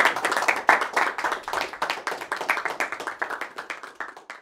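Audience applauding, dense clapping that thins out and fades near the end.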